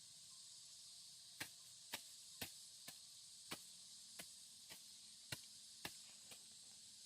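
A run of about ten sharp chopping knocks, roughly two a second, starting about a second and a half in and stopping near the end, over a faint steady chirring of insects.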